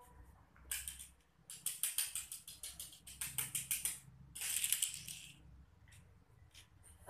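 Small plastic toy car rattling and clicking on a tiled floor as a kitten bats it about: quick runs of clicks, then a denser rattle about four seconds in that stops by the middle of the stretch.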